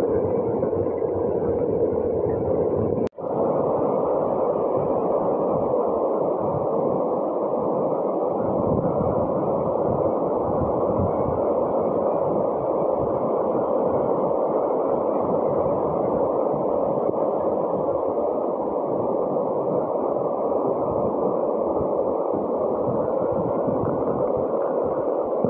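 Steady rush of floodwater pouring across a paved street, mixed with heavy rain. The sound drops out for an instant about three seconds in.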